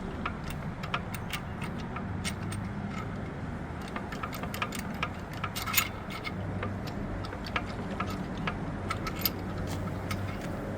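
Irregular light metallic clicks and taps as an LQ9 main bearing cap is rocked back and forth by its bolts to work it out of the engine block, over a low steady hum.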